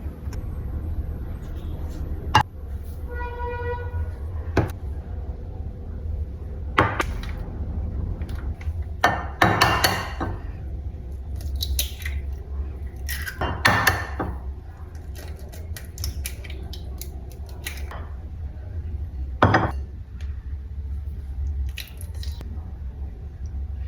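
Kitchen utensils and bowls knocking and clinking on a counter during batter preparation, in scattered bursts of clatter over a steady low hum. A short ringing tone sounds about three and a half seconds in.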